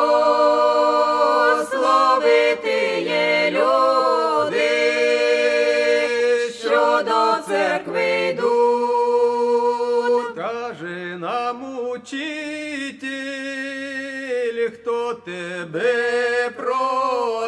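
Male voices singing a slow Ukrainian religious chant, with the melody moving over a steady held drone note. The singing softens in the middle and swells again near the end.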